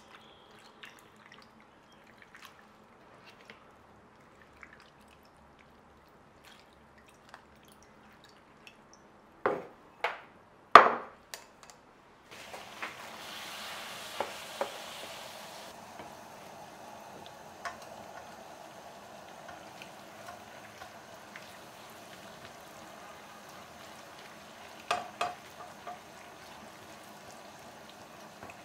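Kitchen utensil sounds: light scattered clicks, then three sharp knocks in quick succession about ten seconds in, the last the loudest. After that comes a steady soft noise with occasional clicks and a brief hiss.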